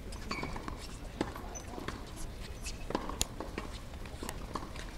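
Scattered sharp pops of tennis balls being struck and bouncing on a hard court, coming at irregular intervals, the loudest a little past three seconds in.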